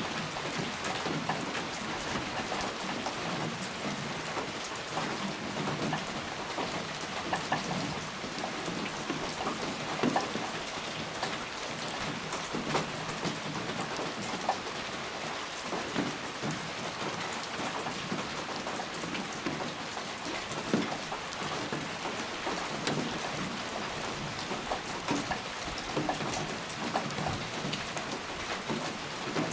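Steady rain, with many separate drop hits standing out close by.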